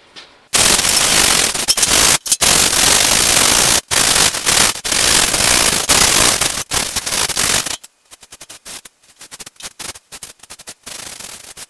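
Hand wire brush scraping over the rusty steel seat pan of a John Deere 185 lawn tractor, scrubbing off rust loosened by electrolysis. Loud, continuous scraping strokes for about seven seconds, then quieter, shorter and quicker strokes.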